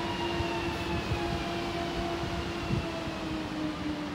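Electric multiple unit running along the track, its traction motors giving a steady whine of several tones that slowly falls in pitch, over the rumble of the wheels on the rails.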